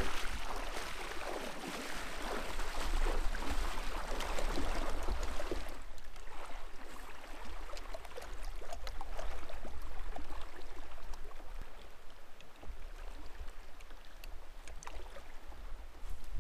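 Shallow river water rippling and splashing around a person wading knee-deep, louder for the first six seconds or so, then calmer, with scattered small splashes. A steady low rumble of wind on the microphone runs underneath.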